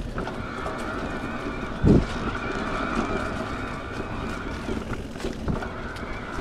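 Niner e-RIP 9 electric mountain bike ridden along a dirt trail: a steady motor whine over rolling tyre and trail noise, with one heavy thump about two seconds in.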